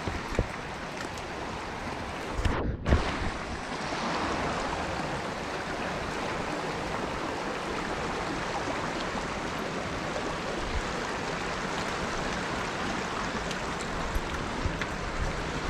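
Mountain river water flowing steadily. A few low bumps and a brief break come about three seconds in.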